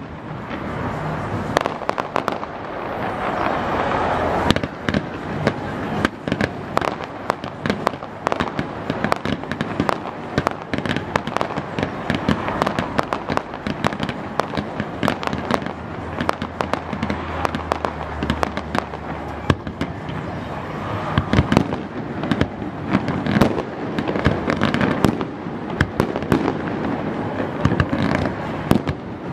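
Fireworks display: shells bursting in a rapid, irregular string of sharp bangs and crackles, over a continuous rumbling haze of overlapping reports.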